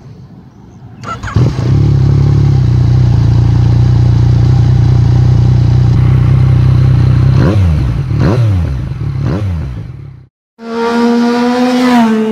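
Yamaha MT-09's three-cylinder engine started about a second in, settling into a steady idle, then revved three times with quick throttle blips. Near the end it cuts off abruptly and a higher steady tone takes over.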